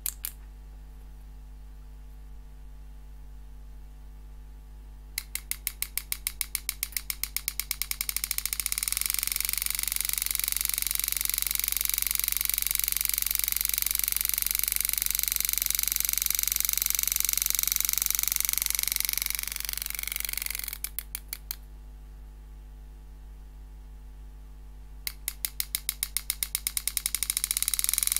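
Super EZ graver handpiece hammering a 120° carbide cutter into 304 stainless steel. Its strikes start as separate rapid clicks and speed up into a continuous buzz as the foot pedal raises the strike rate. The buzz holds for about ten seconds, slows back to clicks and stops. After a pause of a few seconds, the clicks start again and speed up into a buzz near the end.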